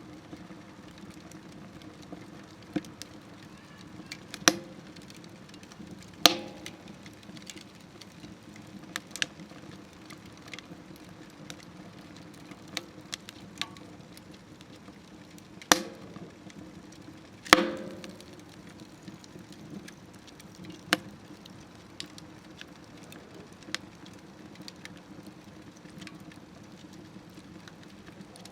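Firewood burning in a smokeless wood stove: a low steady rush of flame with sharp, irregular crackles and pops a second or a few seconds apart, a handful of them much louder than the rest.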